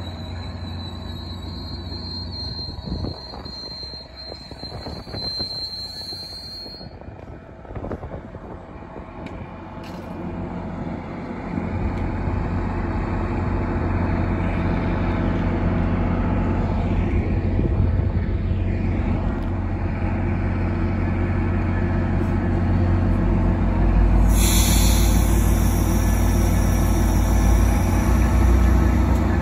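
MBTA commuter train led by a GP40MC diesel locomotive arriving at a station: the coaches roll past with a steady high squeal of wheels or brakes that stops after about seven seconds. A low steady rumble then builds, and a hiss joins it about 24 seconds in.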